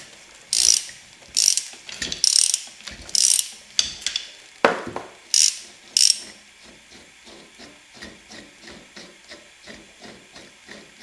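Ratchet wrench backing a jammed, badly threaded shaft coupling off an alternator shaft. There are firm strokes about once a second, each with a burst of pawl clicks, and one sharp metal knock a little before five seconds in. The coupling then starts to turn more freely, and the ratchet gives a steady run of lighter ticks, about three a second.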